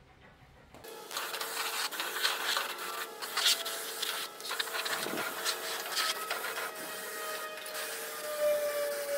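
Compressed-air gravity-feed spray gun spraying paint, a loud hiss that starts about a second in and surges as the trigger is worked. A steady tone and a slowly falling whine run beneath the hiss.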